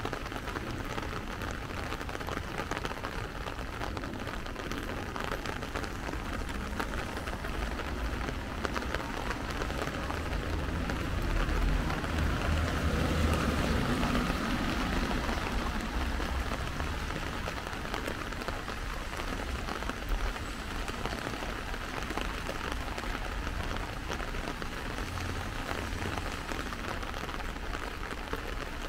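Steady rain falling, an even hiss. About halfway through, a low rumble swells and fades.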